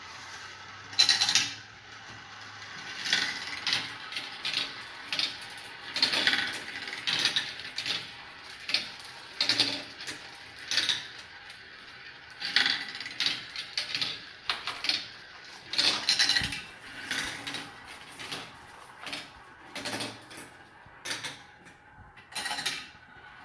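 Marbles rolling and clattering down a marble run, with a long run of irregular clicks and rattles as they drop through the pieces and strike one another.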